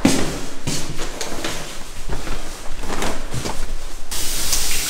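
Irregular knocks and clicks of an apartment door being opened. About four seconds in, a steady hiss comes in.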